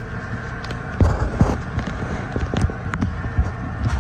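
A Silverado's 4.8-litre V8 idling with a steady low hum, heard from inside the cab, with a few scattered knocks and a short, louder rustle about a second in.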